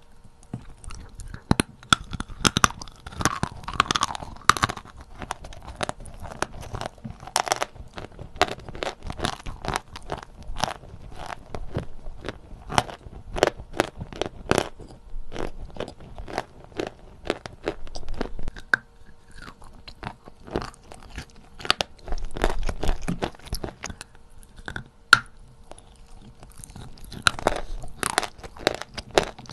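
Close-up crunching of natural Novy Oskol chalk being bitten and chewed in the mouth: many irregular sharp crunches, louder in bursts near the start and again near the end.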